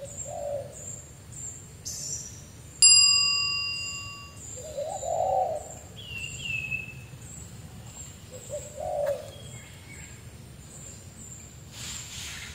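Birds calling: a short high chirp repeated about twice a second, with low cooing calls every few seconds. About three seconds in, a single bell strike rings out and fades over a couple of seconds.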